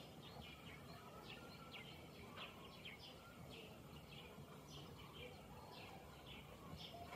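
Faint, repeated short bird chirps, about two a second, over a low steady background noise.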